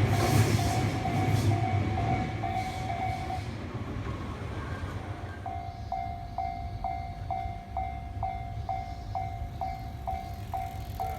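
A train passes over the level crossing, its rumble and wheel noise loud at first and fading away over the first few seconds. A Japanese level-crossing warning bell dings about twice a second throughout, except for a break of about two seconds midway.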